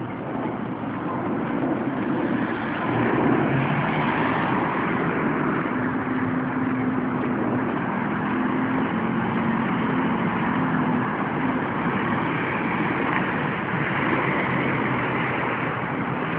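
Street traffic running nearby: a steady noise of engines and tyres, with one vehicle's low engine hum standing out for several seconds in the middle.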